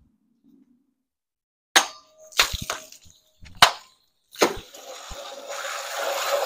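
A longsword cutting through a water-filled plastic milk jug: a sharp hit about two seconds in, followed by a run of knocks and clatters from the cut jug, then a rushing noise that grows over the last two seconds.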